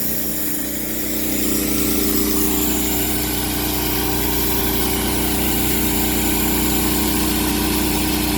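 Sawmill engine running steadily as the saw cuts through a cedar log, growing a little louder about a second and a half in.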